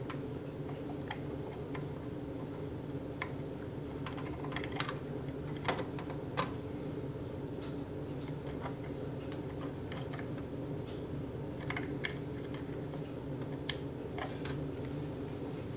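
Scattered light clicks and taps as laptop parts are handled while a replacement hard drive is fitted into the case, over a steady low hum.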